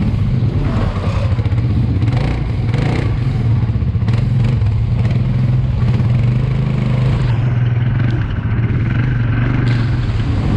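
ATV (quad bike) engine running steadily on the move, with scattered knocks from the ride.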